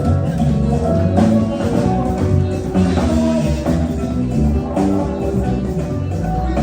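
Live band playing music, with a bass line held under a steady beat of drum strikes.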